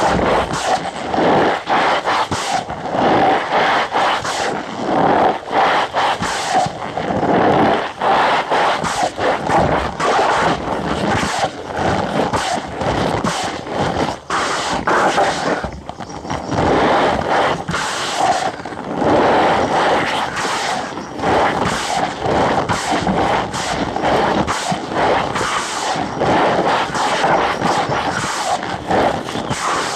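Cornstarch powder being squeezed and pressed, giving a dense, continuous run of squeaky crunching, with a short lull about halfway through.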